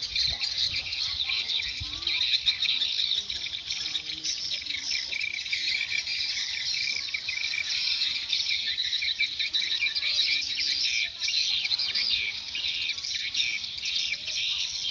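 A dense, continuous chorus of edible-nest swiftlets chirping and twittering rapidly at a high pitch: swiftlets responding to a call-sound lure.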